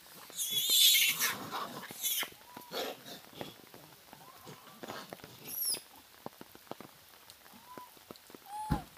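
A troop of macaques foraging: several short calls that rise and fall in pitch, a harsh noisy burst near the start, and scattered small clicks and patter from the animals moving over wet ground.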